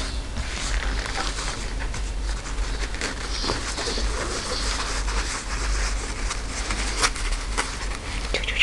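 Rustling and light scratching of a synthetic work jacket's fabric as a tortoiseshell kitten plays on it, clawing and crawling while a hand moves over the cloth, with scattered small clicks.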